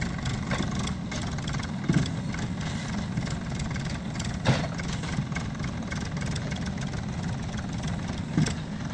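A heavy vehicle's engine runs steadily with a low rumble. Short sharp knocks come about two seconds in, again midway, and near the end.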